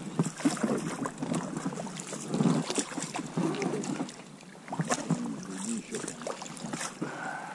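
Small boat being paddled on a river: paddle splashes and scattered knocks, with indistinct talking in the middle.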